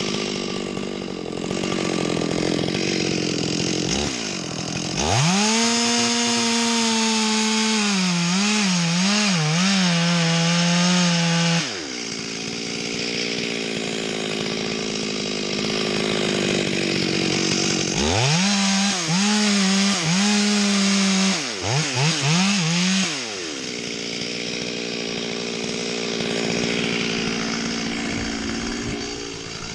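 Chainsaw idling, then run up to full throttle for about six seconds, its pitch dipping and wavering as it cuts wood, before dropping back to idle. A second full-throttle cut of about five seconds follows, with the pitch wavering again and dipping sharply a few times, and then it settles back to idle.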